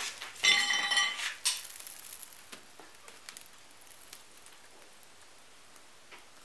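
The hinged, brick-lined lid of a small electric glass furnace being lifted open: a short squeal and a scrape in the first couple of seconds, then a few faint ticks and rustles.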